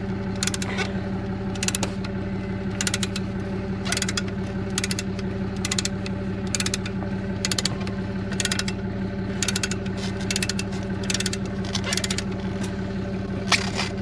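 Ratchet wrench loosening a scissor-type wheel chock wedged between a fifth-wheel trailer's tandem tires, clicking roughly once a second. A steady engine hum runs underneath.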